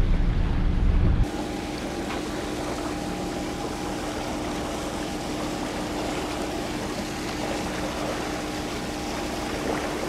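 A sailboat's engine running steadily under way, a constant hum over the hiss of water past the hull. For about the first second, loud wind rumble on the microphone covers it, then cuts off abruptly.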